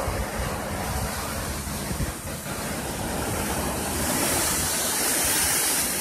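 Ocean surf breaking and washing over shoreline rocks, a steady rushing hiss that swells louder near the end as a wave foams in, with low wind rumble on the microphone.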